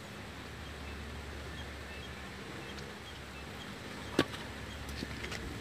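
A small steel cup clicks once, sharply, against a wooden cutting board about four seconds in as it is pressed through a raw potato slice, with a few faint ticks after it over a steady low background hum.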